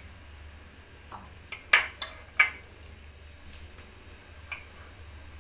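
Metal spoon clinking and scraping against a bowl while scooping out sweetcorn kernels: a few sharp clinks between about one and two and a half seconds in, then some fainter taps.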